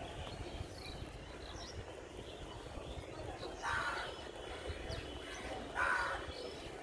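Outdoor ambience: a steady low rumble, with two short, harsh bird calls about two seconds apart in the second half and a few faint chirps.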